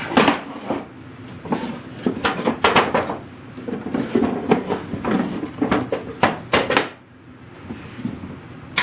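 Irregular knocks and clatter of wood and small tools being handled, with a short quiet pause near the end.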